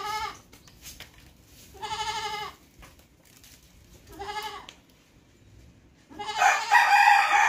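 A young black goat bleating three times, short wavering calls about two seconds apart. About six seconds in, a much louder, longer animal call begins.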